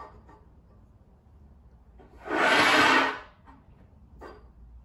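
Metal parts slid across a steel welding table: one scrape about a second long, starting about two seconds in, then a light knock near the end.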